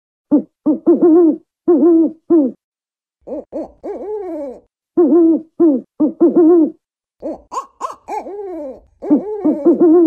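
African wood owl hooting: quick runs of short hoots in repeated phrases, several ending in a longer falling hoot.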